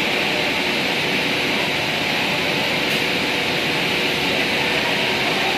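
Rapid Rout 6516 CNC nesting router running, a steady, even machine noise with a strong hiss and no breaks.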